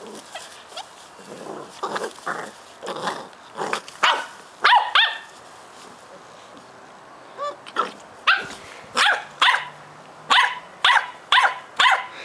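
Cardigan Welsh Corgi puppies barking and yapping during play fighting. A flurry of barks comes in the first few seconds, then a short pause, then a steady run of barks at about two a second near the end.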